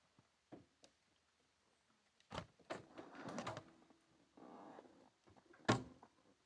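Faint, scattered knocks and clunks with short stretches of rustling and clatter between them; the sharpest knock comes near the end.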